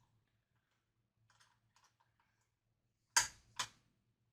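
A small wrench clicking against the metal tuner nuts and bushings on a guitar headstock as they are tightened: light ticks, then two sharp clacks about three seconds in, half a second apart.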